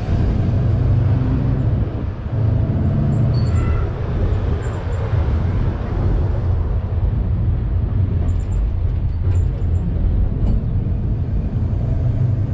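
Engine and road noise of an open-sided tour bus, heard from a seat on board as it drives along: a steady low rumble.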